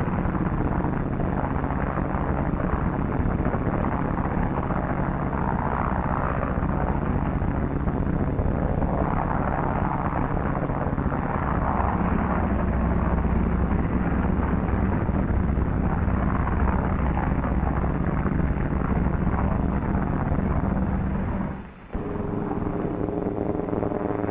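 Twin radial engines of a Douglas C-47 running steadily at takeoff power during the takeoff run. Near the end the sound drops out for a moment and comes back with a different pitch.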